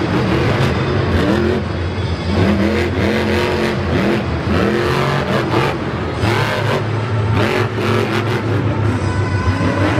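El Toro Loco monster truck's supercharged methanol V8 revving up and down over and over as it drives and turns on the dirt, each rev a quick rise and fall in pitch.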